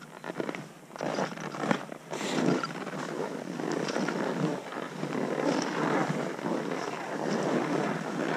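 Skis sliding and scraping over snow on a downhill run: a steady rushing noise, with a few sharper scrapes about one to two and a half seconds in.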